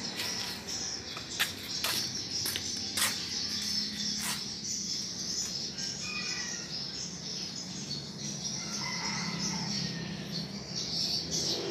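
Birds chirping and twittering over a steady high-pitched chatter, with a few sharp clicks in the first few seconds.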